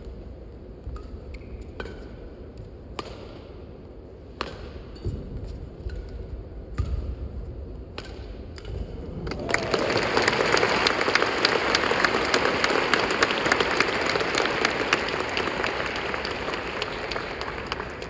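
Badminton rally: sharp racket strikes on a shuttlecock every second or so, with shoe noise on the court. About halfway through the rally ends and the crowd breaks into loud applause that slowly fades.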